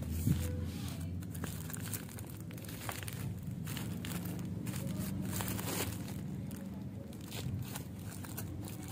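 Plastic shrink-wrap on packs of toilet rolls crinkling irregularly as they are handled and set on a shelf, over a steady low hum.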